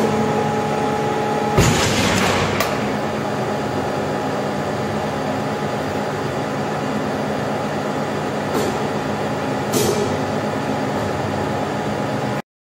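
CNTA 3150/16 hydraulic guillotine shear running, its hydraulic unit humming steadily. A loud sharp hiss-and-bang comes about a second and a half in, and a few shorter sharp noises follow later. The sound cuts off abruptly near the end.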